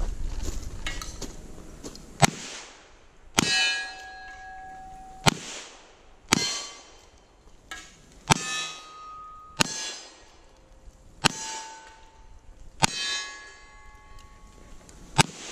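Single-action revolver shots fired one at a time, about nine in all, one to two seconds apart, each followed by the ring of a hit steel target, the targets ringing at different pitches.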